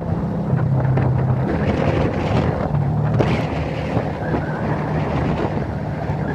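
Diesel engine of a Volkswagen heavy truck hauling a triple-trailer load of eucalyptus logs, running steadily with road noise; the engine hum shifts in pitch a couple of times.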